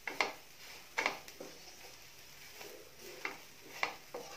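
Wooden spatula stirring leafy greens in a frying pan, giving about half a dozen light scrapes and taps against the pan at uneven intervals.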